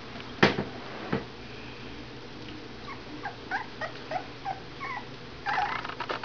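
Twenty-two-day-old standard poodle puppies making a string of short, high squeaks and whimpers. There are two sharp knocks in the first second and a brief scuffling burst near the end.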